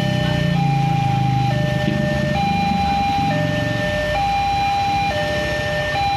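Railway level-crossing warning alarm sounding two alternating electronic tones, a higher and a lower, switching about once a second. Underneath is the low rumble of cars and motorcycles waiting at the crossing.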